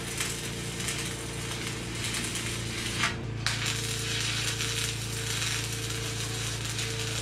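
Wire-feed welder arc crackling as it lays a weld on a steel trailer frame, with a brief break about three seconds in before the arc strikes again. A steady low hum runs underneath.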